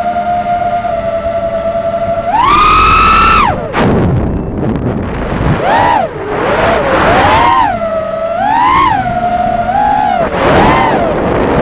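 Brushless motors of a 6-inch FPV quadcopter whining. The pitch holds steady for about two seconds, jumps sharply to a high whine for about a second on a throttle punch, then drops and swoops up and down repeatedly as the throttle is worked, with air rushing beneath.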